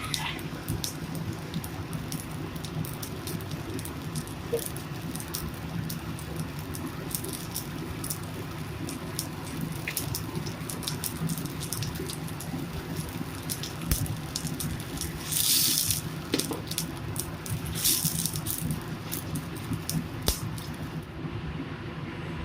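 Food frying in hot oil, sizzling with many quick crackles and pops, swelling louder twice near the end.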